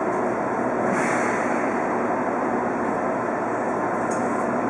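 Steady running noise of a Seibu Shinjuku Line electric commuter train heard inside the driver's cab as it starts off from the platform, a low hum and hiss with faint steady tones. A brief hiss rises about a second in.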